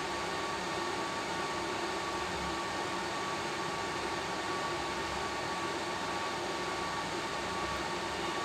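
Steady whirring of cooling fans in a telecom power-equipment room, with a thin steady whine over it.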